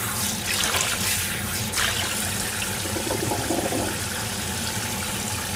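Kitchen tap running into a plastic container of freshly boiled broccoli, the water splashing steadily as the broccoli is rinsed in cold water to stop it cooking, with a few light plastic clicks from the container and drainer lid.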